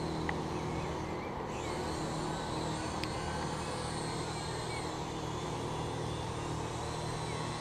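Syma X8W quadcopter's motors and propellers humming steadily as it flies, with a faint high whine that shifts a little in pitch as the throttle changes.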